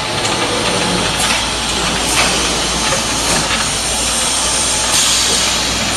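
Automatic carton packing line running: a steady machine din with a few short hisses.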